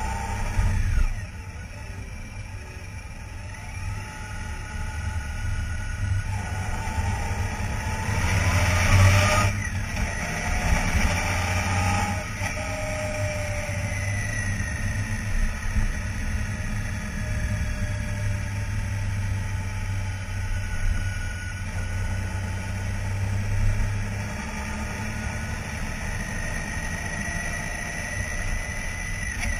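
Honda Gold Wing GL1800's flat-six engine running on the move, with steady road and wind noise. About eight seconds in, a louder rush of noise swells and then cuts off suddenly.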